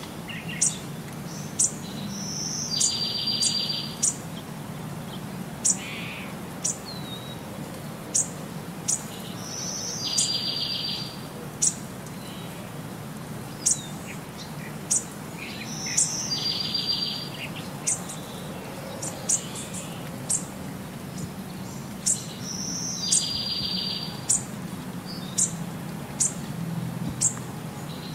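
Short, high bird chirps, with a buzzy trill that comes back about every six to seven seconds, over a steady low hum. It is a looped background soundtrack that runs on unchanged across the picture cuts.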